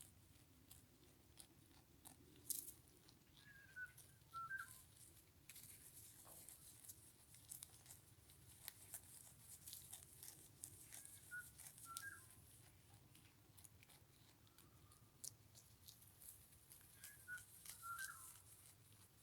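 Goat biting and chewing fresh-cut grass: a run of crisp crunches and snaps as it tears and grinds the stems.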